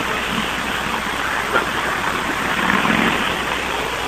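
Steady road and engine noise inside a moving car, on a hissy, low-quality recording.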